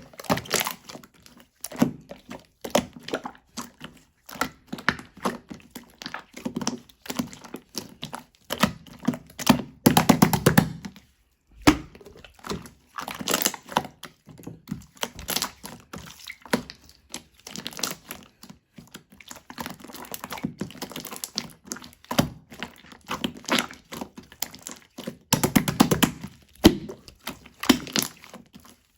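Milky-white slime being squeezed, poked and stretched by hand, giving rapid wet pops and crackling clicks, with a short pause about 11 seconds in.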